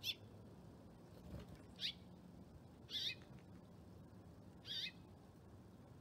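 Small songbird giving four short, sharp chirps spaced one to two seconds apart, each a quick zigzagging note.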